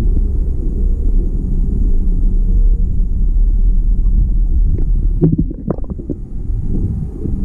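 Muffled low rumble of water moving around a camera held underwater, with a short spell of crackles and bubbling about five seconds in.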